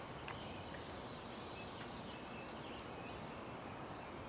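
Faint outdoor background noise with a few brief, thin, high chirps and one or two light ticks.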